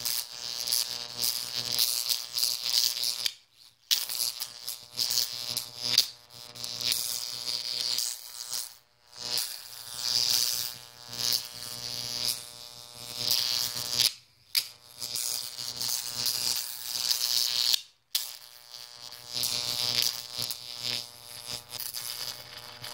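High-voltage arc from a 15 kV transformer burning from a copper electrode into dry concrete mix powder: a loud buzzing crackle over a steady electrical hum. It cuts out for a moment about four times.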